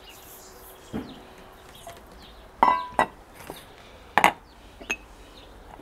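Dishes clinking against a mixing bowl as ingredients are tipped in: a dull knock about a second in, then a few sharp clinks over the next four seconds, one with a short ring.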